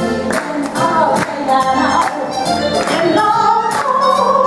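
A woman singing a lively song over a backing track with a steady beat, holding a long note near the end.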